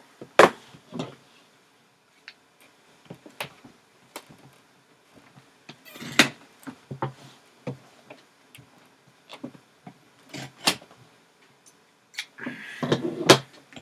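Scissors cutting the seal tabs on a cardboard trading-card box: a few sharp snips and clicks, the loudest about half a second in, with light handling rustles between and a longer rustle near the end.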